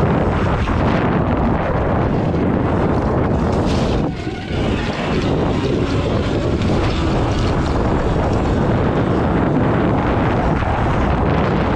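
Wind buffeting the microphone while an electric dirt bike rides fast over a rutted, muddy track, with tyre and chassis rattle underneath and no engine note. The rush eases briefly about four seconds in.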